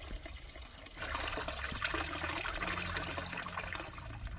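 Water trickling, then from about a second in a steady pour with fine splattering.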